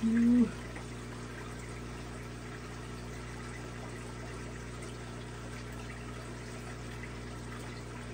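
Aquarium filters and pumps running steadily, with a low hum and the hiss and trickle of moving water. Right at the start there is a brief, loud hummed tone lasting about half a second.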